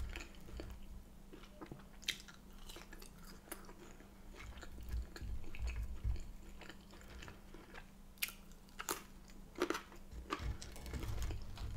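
Close-miked chewing of crinkle-cut chips, with irregular soft crunches and sharp wet mouth clicks.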